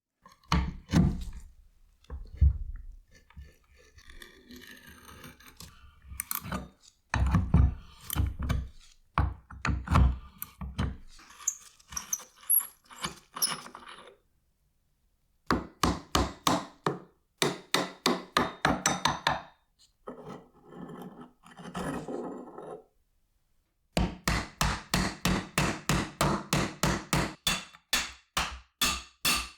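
Hammer blows on the old fire axe, knocking it apart: irregular clusters of sharp knocks with short pauses, then a fast, even run of about three strikes a second near the end.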